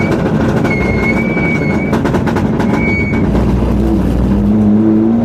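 Mitsubishi Lancer Evo 7 rally car's turbocharged four-cylinder engine and road noise, heard loud from inside the cabin, with a high steady whine coming and going twice in the first three seconds. About four seconds in, the engine note rises as the car accelerates.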